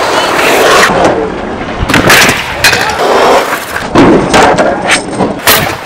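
Kick scooter rolling over concrete, the small hard wheels running with a steady gritty noise, broken by several sharp clacks of the deck and wheels striking the ground.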